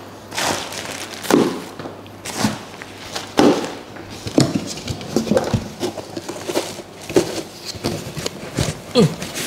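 Cardboard boxes and packaging being handled: a string of irregular knocks, scrapes and rustles as bags are set down and cardboard is pulled open.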